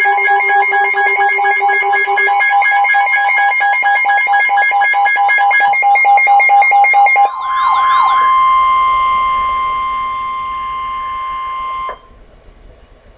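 Emergency alert tones: several electronic alarm beeps pulse over one another. About 7 seconds in they give way to a warbling sweep and then a single steady tone, which cuts off about 12 seconds in.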